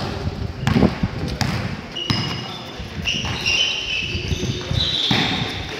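Basketball bouncing on a hard indoor court, a series of uneven thuds, with short high squeaks of sneakers on the floor from about two seconds in as players run.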